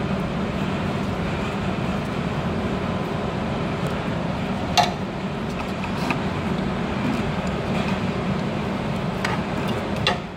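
A few sharp clicks of an adjustable wrench working the nut of a refrigeration unit's electronic expansion valve, the loudest about five seconds in, over a steady drone of running machinery.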